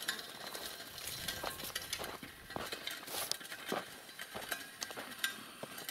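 Footsteps on a dirt road with irregular light knocks and clinks from a carried shovel and bucket.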